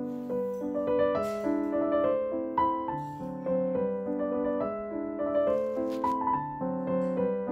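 Background piano music: a gentle melody of held notes changing every half second or so.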